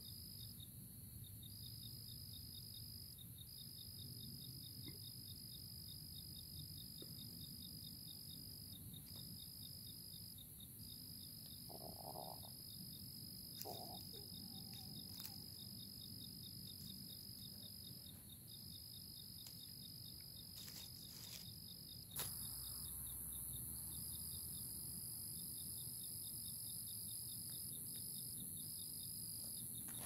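Crickets calling: a steady high trill that breaks off briefly every few seconds, over a slightly lower, fast-pulsing trill. A click about three-quarters of the way in is followed by a louder background hiss.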